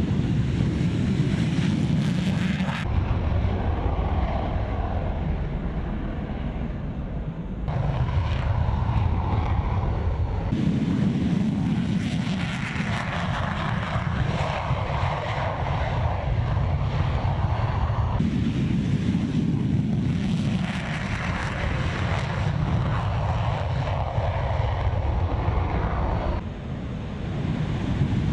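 F-15 Eagle fighter jets taking off, their twin jet engines at full power with afterburners lit: a loud, continuous jet roar. It changes abruptly several times as the audio cuts from one takeoff to another.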